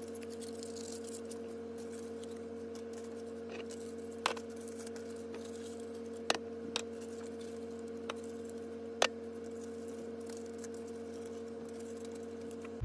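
Aluminium foil rustling and crinkling as it is pressed down over the mouths of mason jars, with four sharp clicks or taps spread through, over a steady hum.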